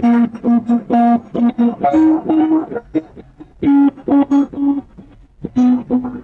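Emergency alert alarm tone with a plucked, guitar-like sound: a run of short notes about four a second, stepping up in pitch about two seconds in, played in phrases with brief gaps between them.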